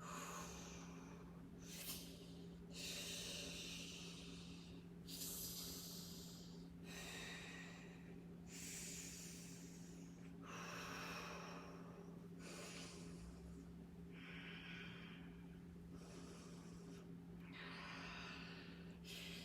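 A woman breathing audibly in and out with the effort of resistance-band bicep curls, a breath about every one to two seconds, over a steady low electrical hum.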